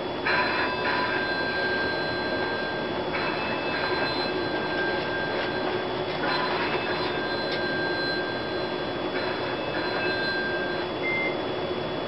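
An electronic tone pattern repeats about every three seconds, four times. Each repeat is a short buzzy onset followed by a held steady tone of about two seconds, over a constant hum.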